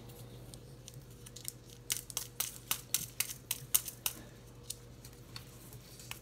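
Small paper ingredient packets handled and torn open by hand: a run of sharp crinkling crackles between about one and a half and four seconds in, then a few scattered ones, over a faint steady hum.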